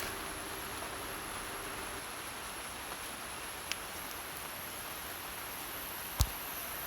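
Steady hiss of rain falling in the forest, with a thin high whine throughout. A faint click comes about three and a half seconds in and a single sharp knock just after six seconds.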